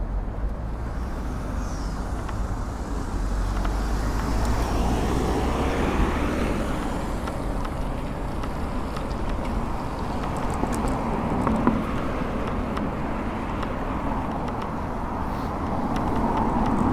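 Steady city road traffic heard from a moving road bike, with low rumble from wind and road on the bike-mounted camera's microphone. Two brief knocks about six and twelve seconds in.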